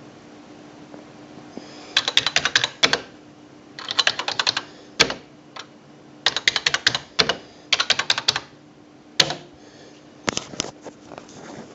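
Smith Corona PWP 3600 electronic typewriter clattering in quick bursts of sharp strikes, about ten a second, with two single louder knocks in between.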